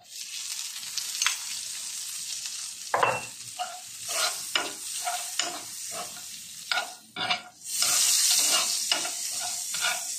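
Diced red bell pepper, garlic and butter sizzling in a nonstick frying pan, with a metal spoon scraping and tapping the pan as it is stirred. The sizzle grows louder about eight seconds in.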